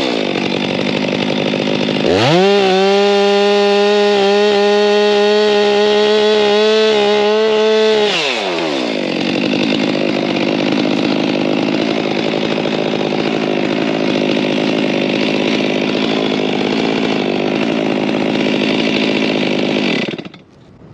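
Small chainsaw limbing a pine tree: it comes off full throttle at the start, revs back up to a high, steady full throttle for about six seconds of cutting, then drops to idle for about ten seconds and shuts off near the end.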